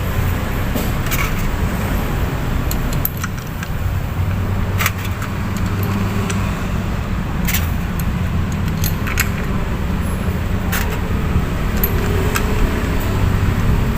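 Scattered sharp metallic clinks of tools and small parts being handled, over a steady low motor hum.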